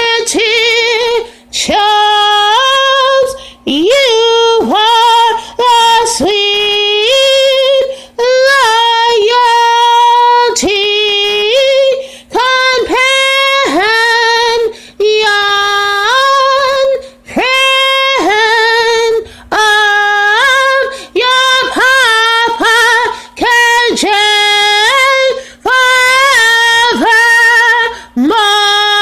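A woman singing unaccompanied in a high voice, holding notes that step up and down in short phrases with quick breaths between.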